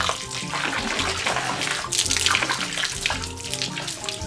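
A stream of bath water pouring and splashing, with background music playing.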